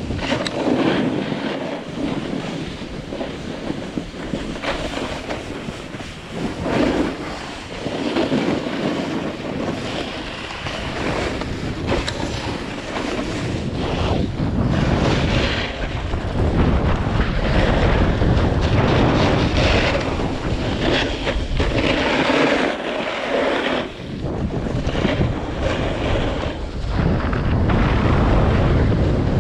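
Wind buffeting the microphone during a fast descent down a ski slope. Over it comes the hissing scrape of edges on snow, swelling and fading every few seconds with the turns.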